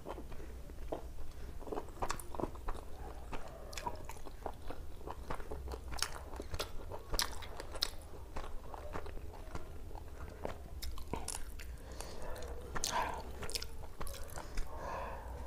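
Close-miked chewing of a steamed chicken momo: a steady stream of small, irregular mouth clicks and smacks, several a second.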